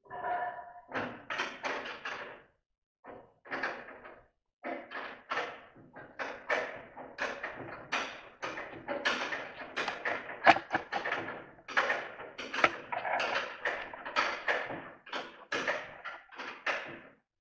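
Thin sheet-steel drum of a twin-bag dust collector rattling and knocking as it is worked by hand onto the collector's frame: a run of irregular short metallic clatters.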